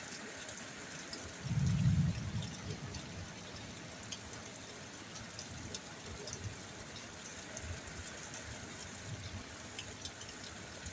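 Rain falling steadily, an even hiss with scattered small drop ticks. A brief low rumble rises over it about a second and a half in and fades within a second.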